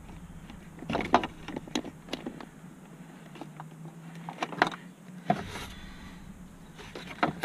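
Hand-working sounds from the plastic dashboard trim and instrument cluster housing of a 2001 Ford F-150 being pried and moved: scattered clicks, knocks and scrapes, busiest about a second in and again around five seconds, over a faint steady low hum.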